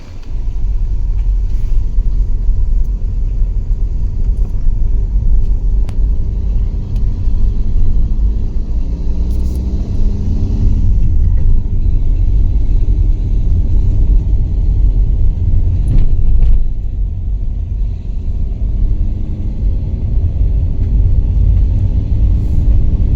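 A car driving, with a loud, steady low rumble of engine and road noise.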